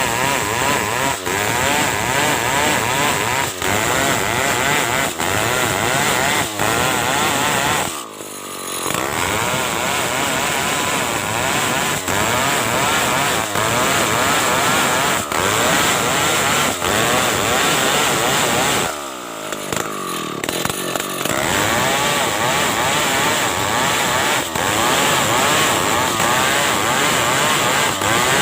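Two-stroke Stihl chainsaw running at full throttle, ripping a large Ulin ironwood log lengthwise into boards. The engine drops back briefly twice, about eight seconds in and again around nineteen seconds, then revs back up into the cut.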